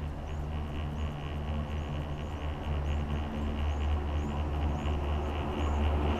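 Steady low drone of a moving gondola cabin running along its cable, heard from inside the cabin, with a faint high chirp repeating about twice a second.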